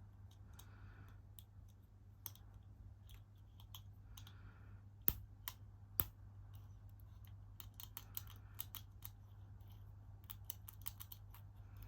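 Lock picks clicking and scraping inside a Master Lock 40D disc padlock as pins are worked one at a time. A scattered run of small metallic ticks, with two sharper clicks about five and six seconds in.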